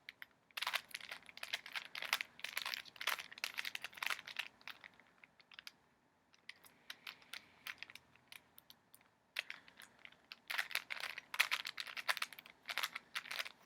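Rubik's cube layers being turned quickly by hand: rapid plastic clicking and clacking in two long runs, with a quieter pause of a few seconds in the middle.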